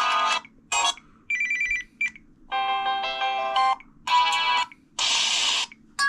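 Samsung Vibrant smartphone's speaker playing a quick run of about six short ringtone previews, each a different electronic melody or chime lasting half a second to a second and cut off abruptly before the next begins.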